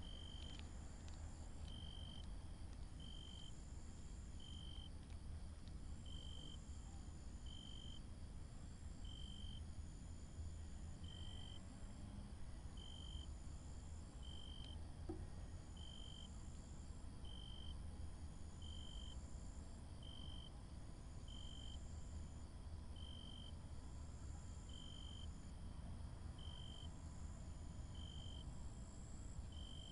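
Insects chirping over a steady low rumble: a short chirp about once a second, with longer, higher calls in between.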